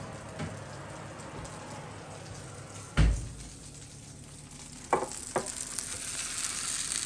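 Hot fat and juices sizzling on a baking tray holding a beef bone with lamb backstrap just out of the oven, the hiss growing stronger near the end. A heavy thump about three seconds in and two sharp knocks around five seconds as the tray is handled and set down.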